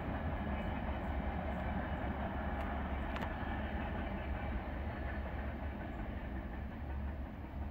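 Empty oil train of tank cars rolling away on the rails: a steady low rumble that slowly fades near the end.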